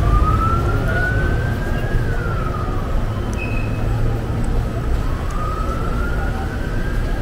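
A siren wailing, its pitch rising slowly for about two seconds and then falling, twice, over a steady low rumble of street traffic.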